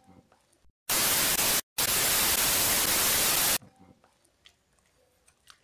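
Loud electronic white-noise static that cuts in abruptly about a second in, drops out for a moment, then resumes and cuts off sharply at about three and a half seconds. Faint clicks of hand-mixing are heard either side of it.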